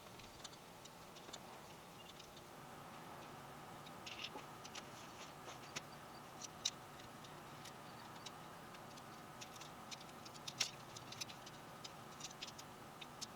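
Fiberglass tent pole sections clicking and tapping against each other as they are handled and fitted together: faint, irregular clicks, a few of them sharper.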